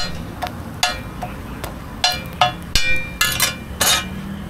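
Metal spatula striking a steel roti griddle: about a dozen sharp metallic taps, each with a short ring, coming faster and louder in the second half.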